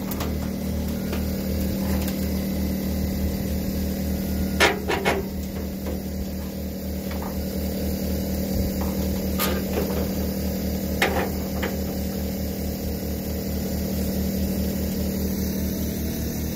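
A motor running steadily with a low hum and an even, slow throbbing pulse, under a few sharp metallic clicks: a pair about a third of the way in, then two more later.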